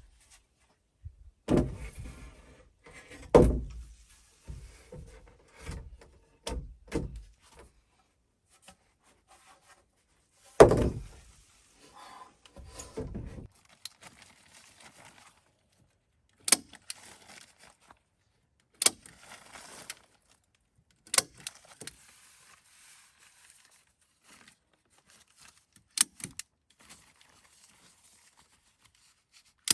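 Hand work with wood and tools: irregular knocks and thuds with rustling between them, the loudest thud about eleven seconds in, then sharper single taps every two to three seconds.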